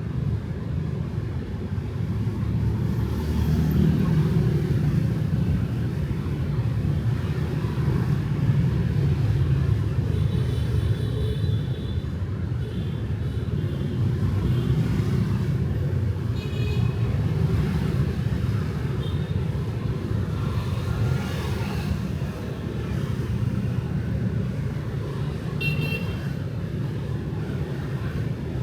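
Street traffic with motorbikes and cars passing in a steady, continuous rumble, with a few brief high-pitched tones here and there.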